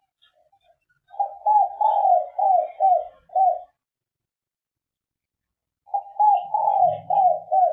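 Spotted dove (derkuku) of the three-note 'kuk 3' type cooing: two loud phrases of short, repeated coos, the second starting about four seconds after the first ends.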